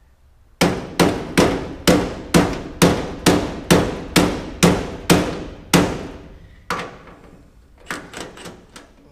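Hammer blows on metal: about a dozen steady, evenly spaced strikes, a little over two a second, each ringing briefly. After a short pause comes one more strike, then a quick run of lighter taps near the end.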